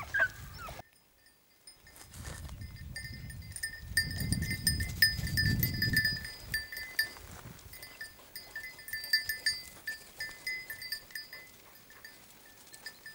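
A small bell on a hunting dog jingling unevenly as the dog trots about, with a low rumble of movement around the middle.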